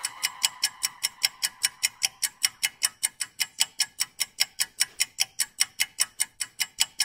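Countdown-timer sound effect: rapid, even clock-like ticking, about four to five ticks a second, marking the last seconds of a Tabata work interval, and stopping suddenly at the end.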